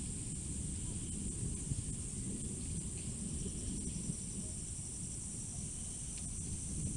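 Low, buffeting rumble of wind on the microphone, with a steady high drone of insects such as crickets behind it.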